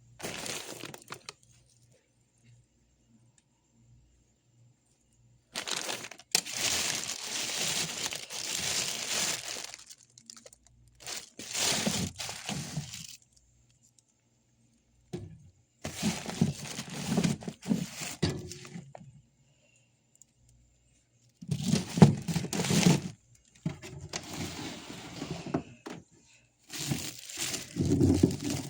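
Repeated bursts of crackling and rustling, each lasting one to four seconds with silence between, with some duller knocks in the later bursts.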